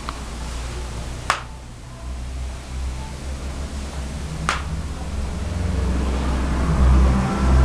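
Two short sharp clicks about three seconds apart over a low steady rumble that grows louder near the end.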